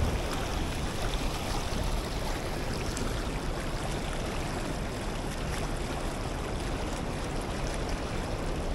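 Steady rush of a shallow, rocky river rapid flowing fast close by, with water breaking around the wader.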